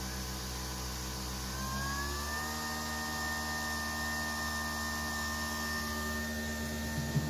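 Nespresso Vertuo coffee machine running as it brews into a mug: a steady mechanical whir that rises in pitch about two seconds in and then holds.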